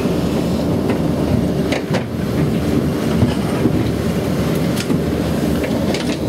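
Cabin of a DMC double-monocable gondola moving through the station under its overhead rail and wheel gear, heard from inside the cabin: a steady rumble with a few sharp clicks.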